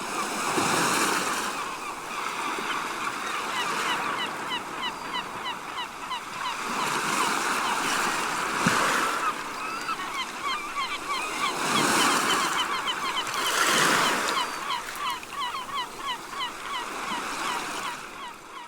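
Seagulls calling over breaking sea waves: a flock's short, gliding calls come one after another while the surf swells and washes in several times, then everything fades out near the end.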